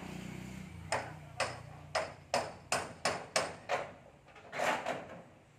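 Hammer blows on metal roofing sheets: about eight sharp knocks at an uneven pace, roughly two a second, then a longer, rougher knock near the end.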